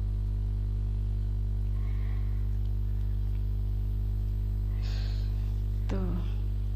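Steady electrical mains hum: a constant low drone with a ladder of buzzing overtones that does not change.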